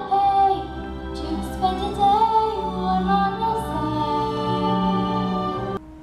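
A female singer's voice singing a held, wavering melody over musical accompaniment in a stage musical. It cuts off abruptly near the end, leaving a low steady hum.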